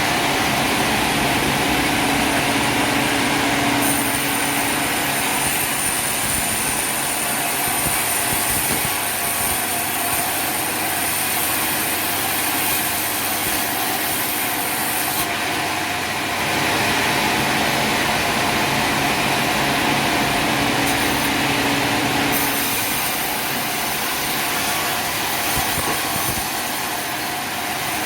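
Sawmill running steadily, engine and saw going as the log is cut, with a high whine that comes in about four seconds in, drops out around the middle and returns later.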